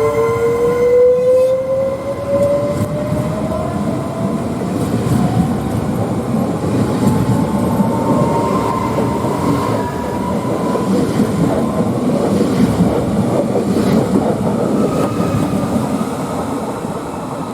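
Train passing close, its wheels rolling on the rails in a loud, steady rumble, with a whine that rises in pitch over the first few seconds.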